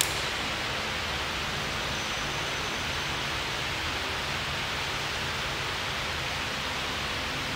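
Steady rushing background noise throughout, with one short knock right at the start as a barbell plate is handled.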